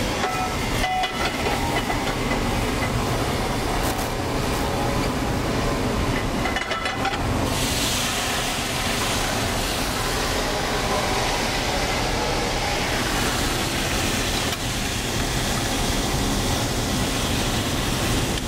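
Shallots sizzling in a hot sauté pan over a gas burner, in the butter and oil the steak was seared in: a steady hiss that turns sharper and brighter about seven and a half seconds in.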